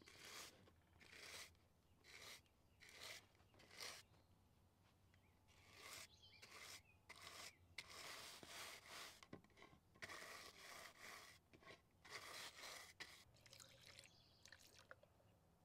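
Stiff-bristled scrub brush scrubbing the plastic base of a pigeon water drinker: quick scratchy strokes in bouts with short pauses. Near the end water begins trickling onto it.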